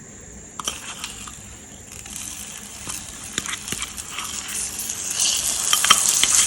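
Ginger paste sizzling as it goes into hot melted caramel in a pan. The hiss starts about two seconds in and grows steadily louder, with a few light clicks along the way.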